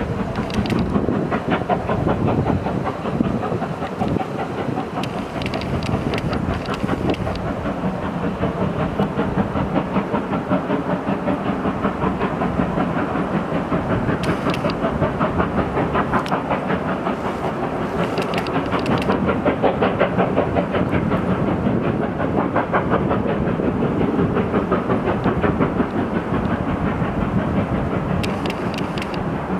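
Steam locomotive 50 3501, a two-cylinder 2-10-0 of the DR class 50.35, working steadily with rapid, even exhaust beats.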